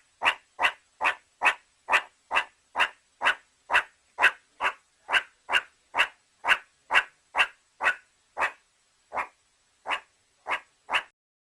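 An animal's short calls repeated in a steady rhythm, about two a second, spacing out a little toward the end.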